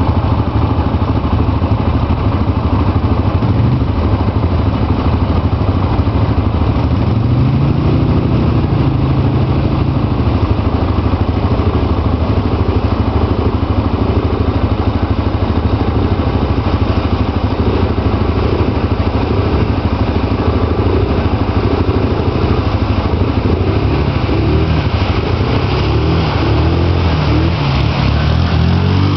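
ATV engines running and revving as the four-wheelers drive through deep mud and water. The pitch rises and falls, with a climb about eight seconds in and more revving near the end.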